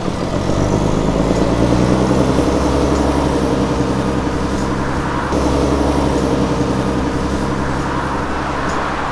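Motor vehicle engine running steadily, with a small change in its note about five seconds in.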